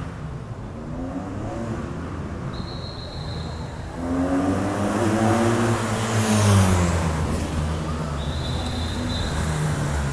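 Police escort motorcycle passing close by, its engine note climbing as it approaches and dropping as it goes past, loudest about six and a half seconds in, with a rush of tyre and wind noise. A short high steady tone sounds twice, once before the pass and once after.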